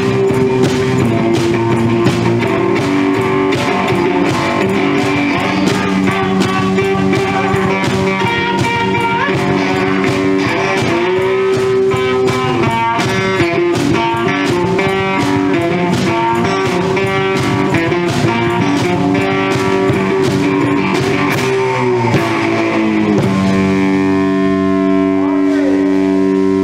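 One-man band playing blues and garage-rock: guitar chords and riffs over a steady beat from a foot-played bass drum and cymbal. Near the end the playing settles into long held chords.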